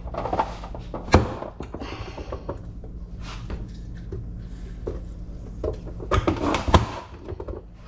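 Irregular knocks and taps of kitchen food preparation on a cutting board: a knife chopping and limes being pressed, with the loudest knock about a second in and a cluster near the end. A low steady hum runs underneath.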